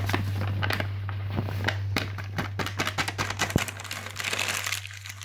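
Paper flour bag crinkling and crackling as flour is tipped and shaken out of it into a bowl: a dense run of irregular crackles that stops shortly before the end.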